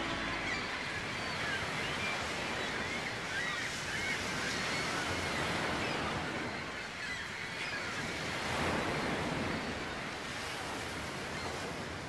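Sea waves washing against a rocky shore, the surf swelling and easing every few seconds, with a few short bird calls over it.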